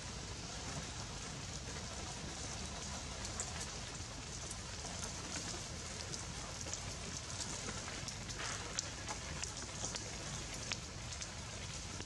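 Steady outdoor background hiss peppered with many small, scattered clicks and crackles.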